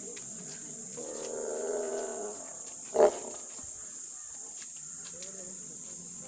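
An animal calling: a drawn-out call of about a second and a half, then a short, sharp, louder call about three seconds in, over a steady high hiss.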